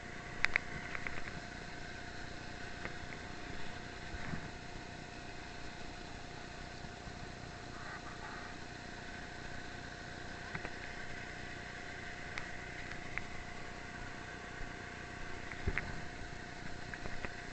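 A motor hums steadily at one constant pitch, with a few faint clicks and knocks.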